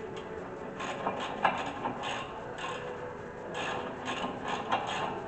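Ratchet wrench with a 19 mm socket clicking in repeated strokes as a brake caliper bracket bolt is run down, with one sharp knock about a second and a half in.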